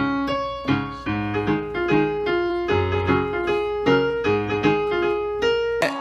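Background music: an electric piano playing a run of chords.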